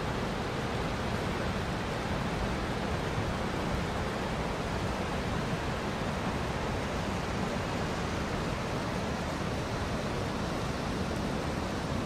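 Whitewater rapids and falls of a large river rushing with a steady, even roar.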